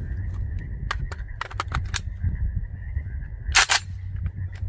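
Handling noise from an AK-style rifle: a run of light, sharp clicks, then a louder double clack about three and a half seconds in, and a couple of faint clicks near the end.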